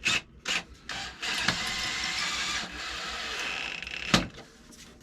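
Cordless drill running steadily for about three seconds, driving a blue Tapcon concrete screw through the toilet closet flange into the concrete, with a couple of clicks just before and a sharp knock just after it stops.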